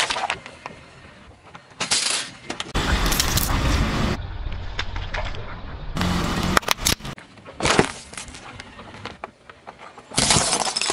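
A car tyre rolling over and crushing one object after another on asphalt, mostly plastic containers and packaging: several separate bursts of crunching and cracking, some with sharp crackling snaps, with abrupt cuts between them.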